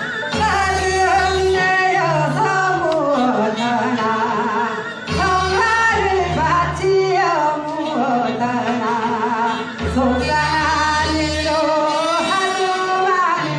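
Music with a singing voice: a melody with wide vibrato and gliding, falling phrases over an instrumental backing with bass notes that come and go.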